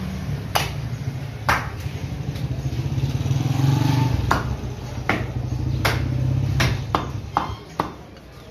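Butcher's cleaver chopping beef on a wooden chopping block: sharp single chops about a second apart, coming faster near the end. A low engine drone runs underneath and cuts out about two-thirds of the way through.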